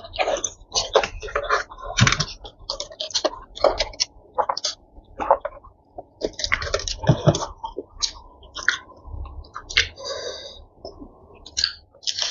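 Close-up eating sounds: chewing and lip smacks in many short, irregular clicks, with a sip through a straw about halfway and a bite into crispy fried chicken near the end.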